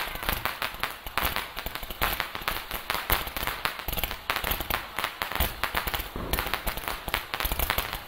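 Fireworks display: a dense, irregular run of bangs and crackling from bursting shells, several a second, with no let-up.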